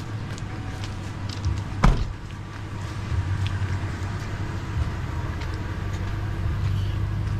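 Passenger van's engine running with a steady low hum, and a vehicle door slammed shut about two seconds in.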